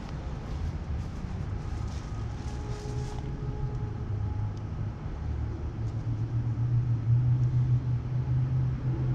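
Car engine running at idle, a low steady rumble that grows louder about seven seconds in.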